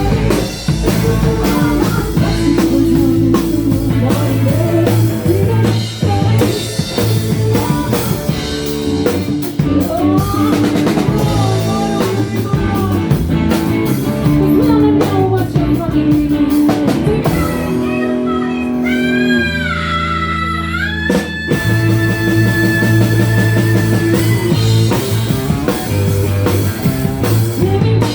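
Rock band playing live: drum kit, electric guitar and singing. About two-thirds of the way through, the drums and low end drop out for a few seconds while a guitar bends its notes, then the full band comes back in.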